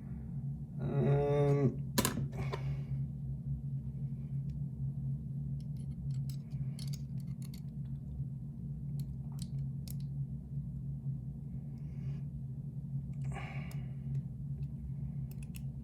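Scattered small metallic clicks and taps of a picked-open lock core and picking tools being handled, over a steady low hum.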